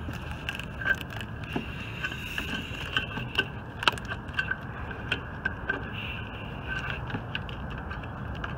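Irregular small metallic clicks and taps as a hand tool and a nut are worked onto an exhaust manifold stud in a cramped engine bay, over a steady low hum.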